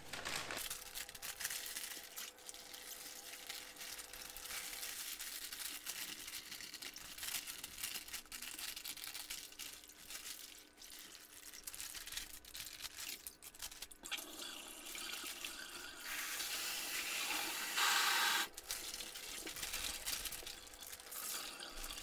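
Water splashing and sloshing as a plastic compost bag is washed out in a stainless-steel kitchen sink, with the plastic crinkling as it is handled. Near the end, a louder rush of water lasts about a second.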